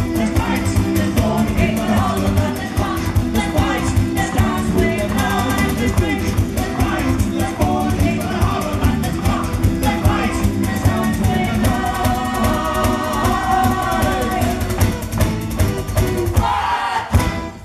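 A folk band plays live, with fiddle, accordion and guitars under sung vocals and a steady beat. The song ends just before the close.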